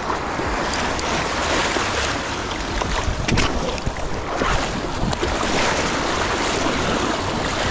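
Wind buffeting the microphone over splashing, sloshing shallow water, with a few sharper splashes about three and a half and four and a half seconds in.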